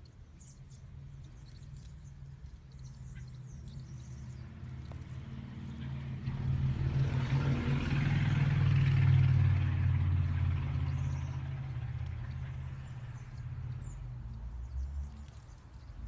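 A motor vehicle drives past: its engine and tyre noise swell to a peak about halfway through, then fade away. Faint bird chirps sound near the start.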